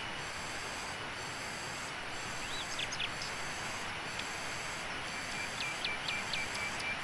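Steady outdoor hiss with a few short, high chirping calls: one rising and falling chirp about two and a half seconds in, then a quick run of about five chirps near the end.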